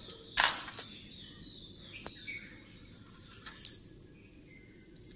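Steady high-pitched insect trilling, with a few faint bird chirps. A brief loud rustle comes about half a second in.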